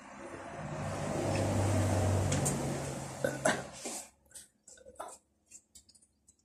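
A person drinking soda from a glass bottle: a low, drawn-out gulping sound swells and fades over the first few seconds. After that come a few small clicks and taps.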